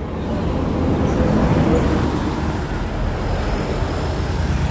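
Road traffic noise close by: a motor vehicle's engine and tyre rumble that swells over the first couple of seconds and then stays steady and loud.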